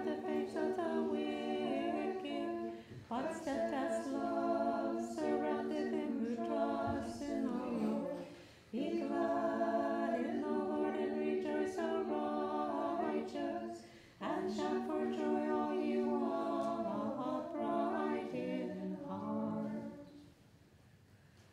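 A small choir singing an Orthodox liturgical chant a cappella in several voices. It comes in four phrases and stops about 20 seconds in.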